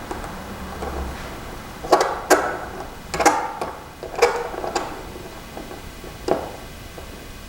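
Sharp clicks and taps of small repair tools and screws against a smartphone's frame and bracket, a handful of them irregularly spaced, most from about two to five seconds in.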